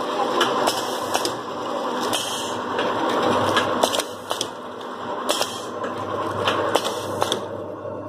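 Vertical form-fill-seal pouch-packing machine running, a steady mechanical hum broken by sharp clacks of its mechanism about twice a second as it seals and cuts spice sachets.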